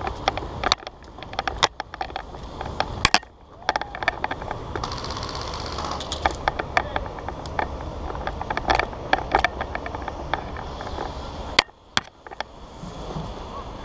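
Scattered sharp snaps and clicks of airsoft gunfire and BB hits over a steady low rumble, the louder snaps coming about one, two and three seconds in.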